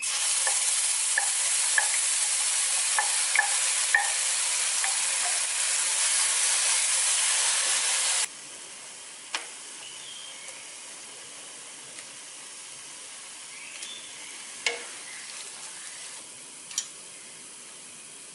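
Ground spice paste (shallot, garlic, chili, turmeric) sizzling in hot oil in a wok as it is stirred. The sizzle is loud for about eight seconds, then drops suddenly to a quieter sizzle, with occasional short clicks of the spatula against the pan.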